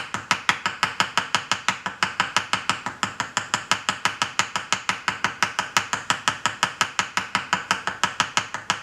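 Small ball peen hammer tapping a 1 mm metal wire rivet with its ball end, about six or seven light, even strikes a second. The tapping spreads the wire end into a domed mushroom head to set the rivet.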